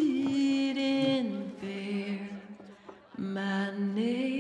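A woman singing a slow song in long held notes that slide down in pitch, break off briefly, and rise again near the end.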